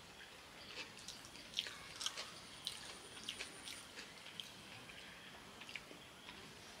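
Close-up eating sounds: irregular soft clicks and wet smacks of chewing and of fingers mixing biryani rice on banana leaves.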